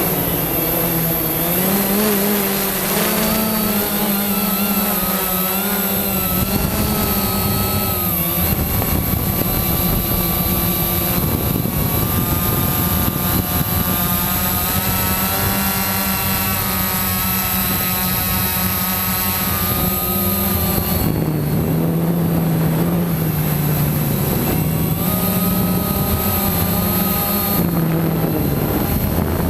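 Quanum Nova quadcopter's motors and propellers buzzing in flight, several tones at once whose pitch rises and falls as the throttle changes. A thin, steady, very high whine sits above it throughout.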